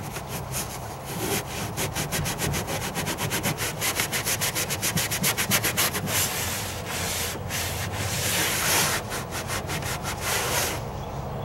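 Paper towel wetted with nail polish remover scrubbed back and forth over the boat's trim to rub off old adhesive residue. Quick strokes, about five a second, for the first half, then longer, slower wipes that stop shortly before the end.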